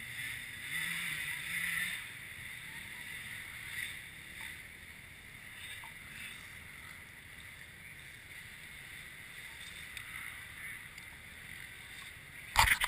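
Faint steady background noise, then near the end a sudden loud burst of rubbing and knocking right on the camera's microphone, handling noise as the rider's gloved hand and gear move against the camera.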